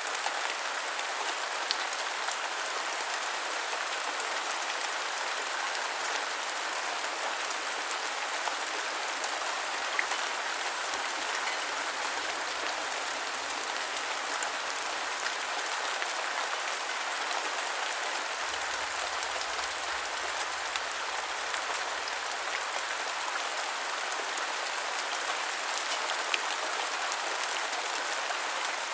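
Steady rain falling and pattering on a surface, with the odd louder drop.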